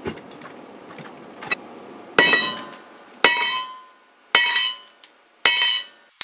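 Four sledgehammer blows, about a second apart, on the red-hot end of an upright 1-inch steel rebar rod. Each is a sharp metallic strike with a brief ring. The blows are upsetting the rod's end to widen it for a bolt head.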